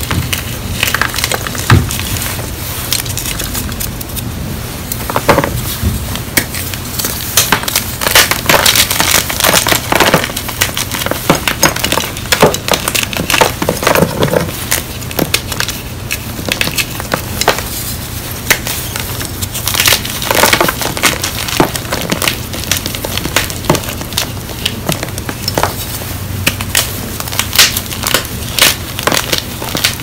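Blocks of gym chalk crushed and crumbled by hand, with dense, irregular crunching and crackling as pieces snap and powder off.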